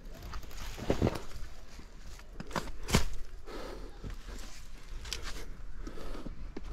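Footsteps on leaf-littered ground strewn with twigs and debris: irregular crunches and snaps, the loudest about one and three seconds in.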